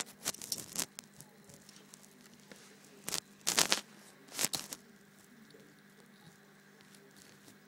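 Rustling, rubbing and knocking of a handheld phone being moved about, in three short bunches: in the first second, about three seconds in and about four and a half seconds in. A faint steady hum runs underneath.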